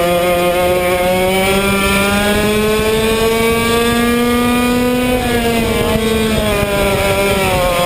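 Yamaha 100cc two-stroke kart engine at race pace, heard from on board the kart: its pitch climbs steadily for about five seconds, then falls away as the throttle comes off, and holds steady near the end.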